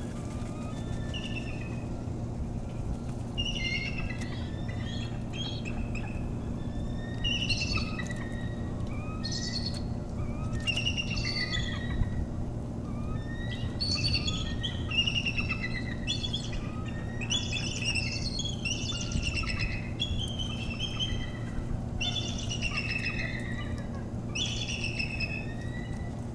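Birds calling: many short, high, falling whistled chirps in quick runs, over a steady low hum.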